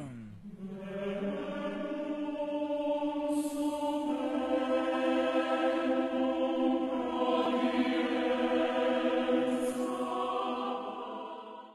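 Chamber choir singing long held chords, the harmony shifting about four seconds in and fading out near the end.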